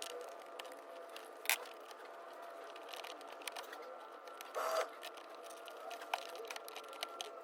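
Hand-work on an electrical outlet installation: scattered light clicks and handling noises, a sharper click about a second and a half in and a brief scrape a little past the middle, over a faint steady hum.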